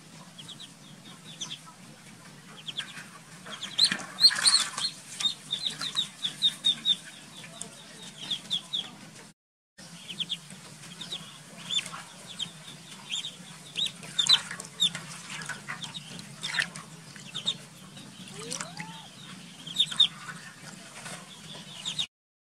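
Ducklings peeping: many short, high cheeps in quick runs, with a louder noisy burst about four seconds in.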